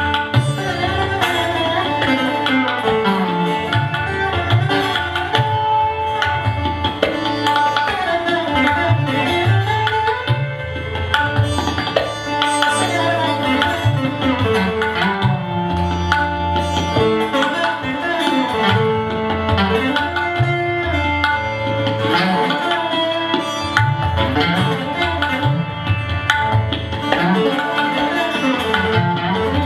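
Background instrumental Indian music: a melody with sliding notes over a steady hand-drum rhythm and a held drone.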